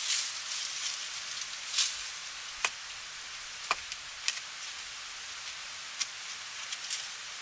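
Rustling for the first two seconds, then five sharp, separate clicks spread over the rest, over a steady high hiss.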